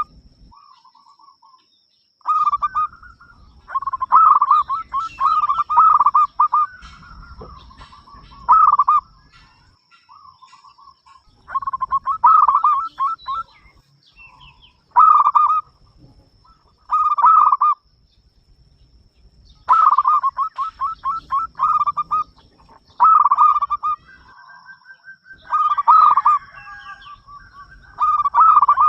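Zebra dove (perkutut) singing: loud phrases of quick, rapidly repeated cooing notes, separated by short pauses of a second or two.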